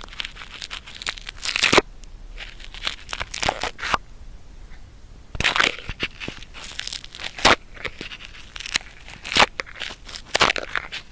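Sticky cotton swab rubbing and scraping in an ear, close up: irregular crackling, scratchy strokes with a short pause about four seconds in.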